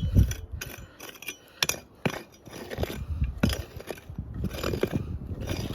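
A hand digging tool scraping and chinking into stony ground, with irregular sharp strokes roughly every second as it strikes small rocks. Wind rumbles on the microphone throughout.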